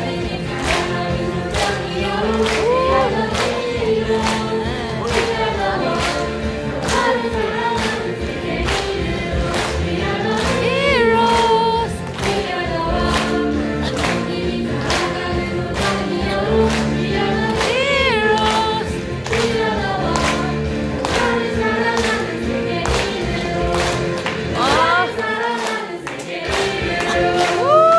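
A youth choir of mixed voices singing together, with a steady beat of about two strokes a second under the song.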